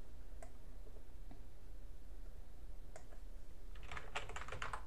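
Computer keyboard keystrokes as a password is typed: a couple of single key clicks, then a quick run of keystrokes near the end, over a low steady hum.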